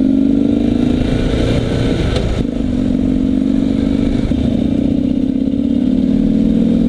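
Harley-Davidson XR1200's air-cooled V-twin running on the move, its exhaust note loud and steady. About two and a half seconds in the note breaks briefly, then holds steady again.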